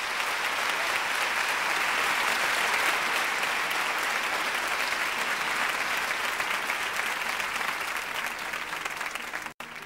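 Concert audience applauding, swelling up over the first second and then holding steady, until it cuts off suddenly near the end.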